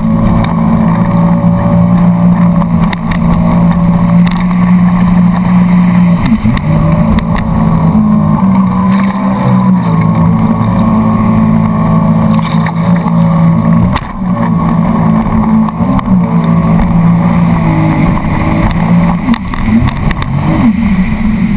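Small motorboat's engine running at speed across choppy water, its pitch dipping and recovering several times, over the rush and splash of water along the hull.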